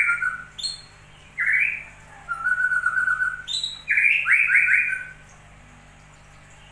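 Bird singing in short phrases of quick stepped chirps with one held whistled note, the song stopping about five seconds in.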